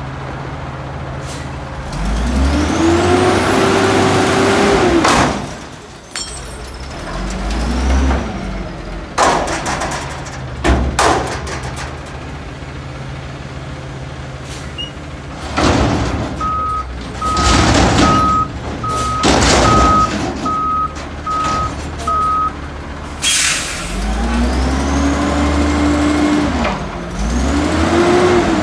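Natural-gas front-loading garbage truck working its forks. The engine revs up to drive the hydraulics, holds, then falls, and sharp metal bangs follow as the dumpster is shaken out over the hopper. A row of about eight evenly spaced beeps and a short air-brake hiss come near the end, then the engine revs again as the arms lower the bin.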